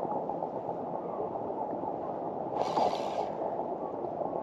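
Water gurgling and lapping against the hull of a fishing kayak drifting in a tidal current, a steady rushing, with a brief louder hiss about two-thirds of the way through.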